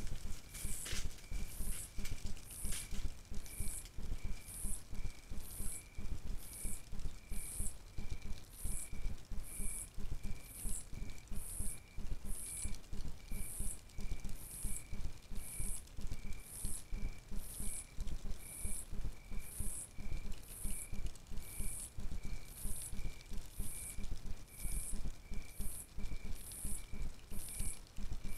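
A night insect chirping in a steady rhythm, a short high-pitched chirp a little more than once a second, over a low, unsteady rumble.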